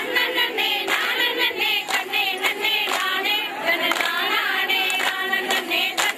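A group of women and girls singing together, clapping their hands in time about twice a second as they dance.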